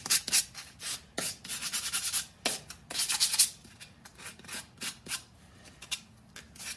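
Hand sanding the edges of a pallet-wood cutout with a perforated sanding disc on a hand-held pad: quick rasping back-and-forth strokes that smooth off the rough edges, growing fainter and sparser after about four seconds.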